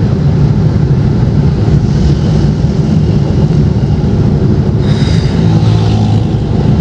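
A car driving, with a steady, loud rumble of engine and road noise heard from inside the car.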